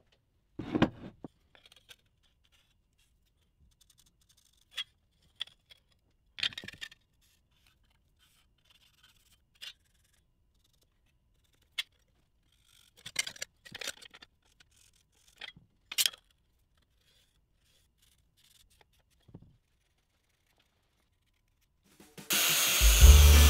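Sporadic short clicks, taps and scrapes of metal layout tools (squares, a steel rule, a marker) being set down and slid on a cast-iron spindle housing, with quiet between. Loud music starts near the end.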